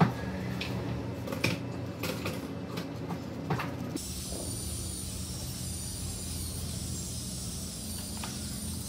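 Steady low mechanical hum with a few sharp clicks. About four seconds in it changes abruptly to a steady high hiss.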